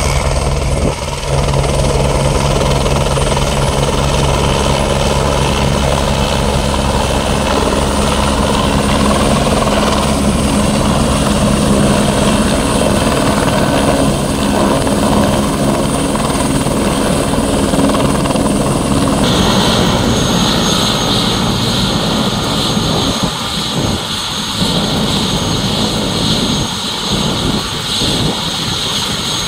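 Light helicopter coming in to land, its rotor beating steadily under the engine. About two-thirds of the way through the sound changes suddenly to a steady high whine as it sits on the helipad with the rotor still turning.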